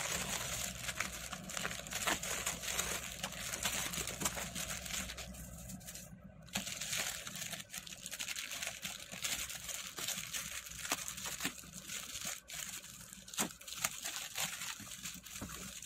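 Clear plastic parcel wrapping crinkling and rustling as it is handled and pulled open, with scissors snipping through the plastic. The rustle stops briefly about six seconds in.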